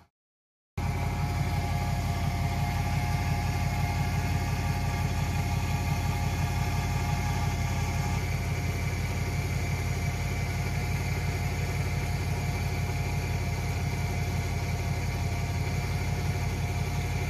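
An engine idling steadily, cutting in abruptly under a second in after a brief gap.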